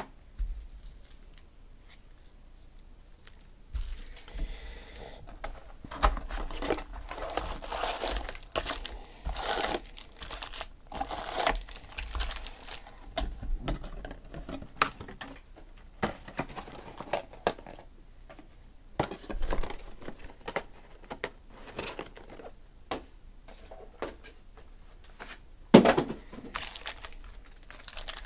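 Crinkling and rustling of foil trading-card packs and their cardboard box as they are handled, in irregular bursts starting about four seconds in. Near the end a loud sharp tear comes as a pack wrapper is ripped open.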